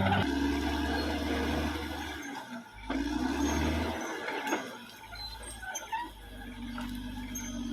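Caterpillar D6R XL bulldozer's diesel engine running, its note dipping and rising again a few times, with a couple of short knocks.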